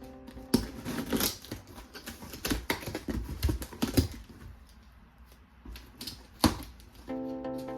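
Plastic toy parts clicking and rattling as they are handled, in quick irregular clicks with a few sharper knocks, the loudest about six and a half seconds in.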